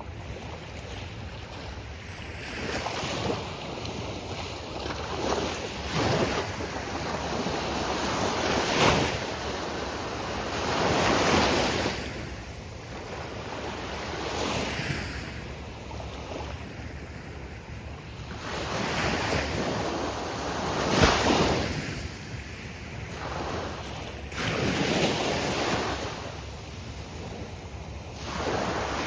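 Ocean surf breaking on a beach, waves swelling and washing in every few seconds over a steady wash, with some wind on the microphone.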